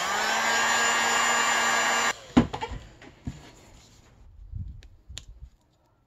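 A heat gun running with a steady whir as it re-melts hot glue that has cooled and hardened, then cutting off suddenly about two seconds in. A few light knocks follow.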